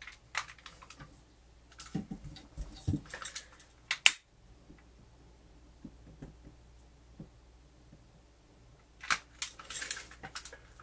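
Scattered handling noises and small clicks from work on wiring, with one sharp, loud click about four seconds in.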